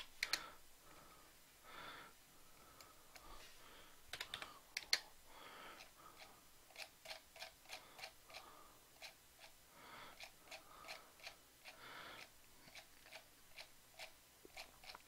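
Faint clicking of a computer keyboard: scattered key presses at first, then an even run of clicks about one to two a second through the second half.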